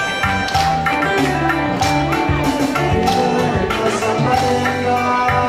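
Live band music: a pulsing bass line and a steady percussion beat under sustained held chords.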